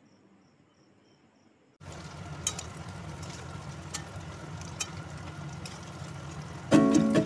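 Paneer cubes sizzling as they fry in oil in a steel wok, with a few light clicks of the spatula against the pan. This comes in after a brief near-silence, and music starts near the end.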